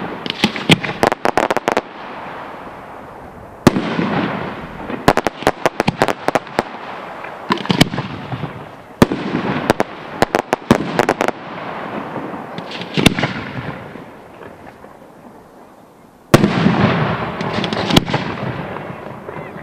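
Fireworks display: aerial shells bursting with sharp bangs every few seconds, mixed with quick runs of crackling reports and a crackling hiss after each burst.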